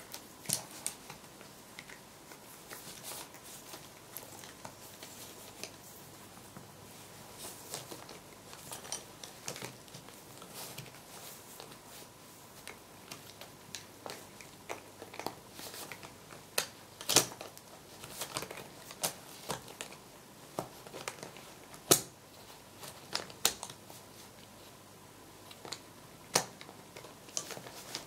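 Newspaper crinkling and rustling as a cat rolls on it and paws and bites at a bundle of metal sticks, with irregular sharp clicks and taps throughout and two louder ones a little past the middle.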